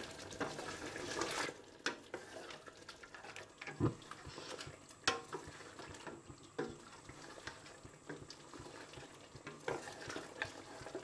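Wooden spoon stirring beef, gravy and ground spices in a stainless steel pot: soft wet scraping with a few sharp knocks of the spoon against the pot.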